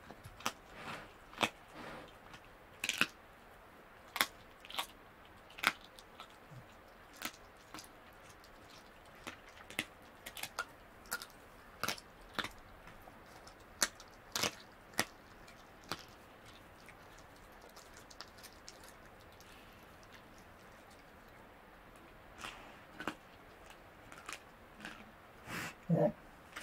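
Tasmanian devil chewing and crunching on bone: irregular sharp cracks and crunches, with a quiet pause of several seconds in the middle. A brief low call sounds near the end.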